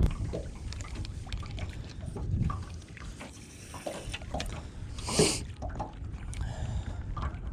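Water lapping and sloshing against a small fishing boat, with wind rumbling on the microphone and light knocks of gear handling. About five seconds in there is a brief louder rush.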